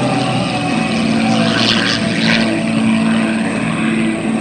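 Super Chipmunk aerobatic plane's piston engine and propeller droning steadily as it climbs steeply overhead, with a brief rush of hiss about two seconds in.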